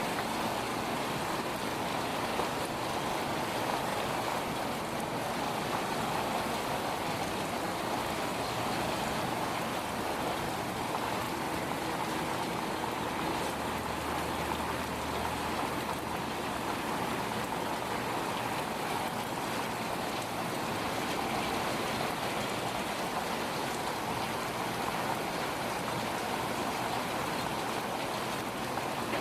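Steady rainfall during a thunderstorm, with an even downpour hiss. There is a faint low rumble about halfway through.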